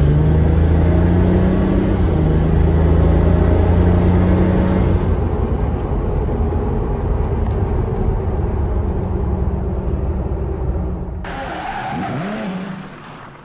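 Toyota 1HD-FTE 4.2-litre straight-six turbo-diesel of a 100 Series Land Cruiser, heard from inside the cabin, pulling hard under acceleration with a steady drone, then easing off about five seconds in and fading. About eleven seconds in, a sudden whooshing sound effect cuts in.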